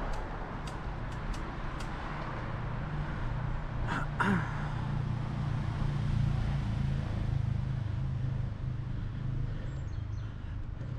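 Road traffic: a car passing, its engine hum swelling in the middle and easing off, over steady road noise. A brief sharp clatter about four seconds in.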